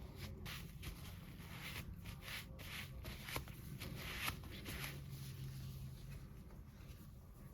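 Soft rustling and handling noises that come and go, with two light clicks a little past the middle, over a steady low hum.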